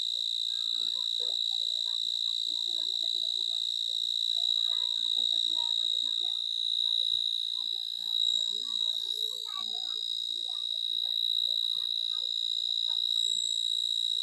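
A continuous high-pitched shrill of night insects, steady in pitch, with faint scattered chirps underneath.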